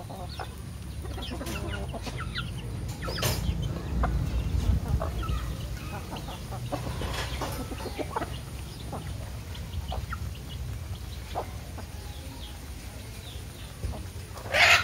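A flock of chickens clucking in short scattered calls while feeding, with one short, loud call near the end.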